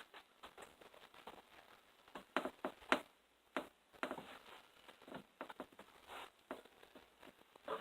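Faint, irregular light clicks and taps, sometimes several a second and loudest about a third of the way in.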